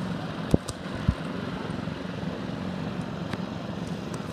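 Small engines of several children's mini go-karts buzzing steadily as they lap the track. Two brief low thumps come about half a second and a second in.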